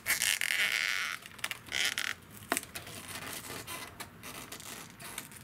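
Thin plastic trim panel being pried with a plastic trim tool and peeled off its double-sided tape: a tearing, scraping noise for about the first second, a shorter one soon after, and a sharp click about two and a half seconds in, then fainter rubbing.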